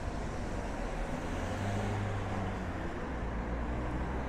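Street traffic: a vehicle passes, loudest about two seconds in, over steady road noise.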